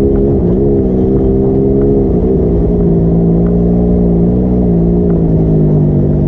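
A vehicle's engine runs while it is being ridden, its pitch dipping briefly twice in the first few seconds, then holding steady and a little lower.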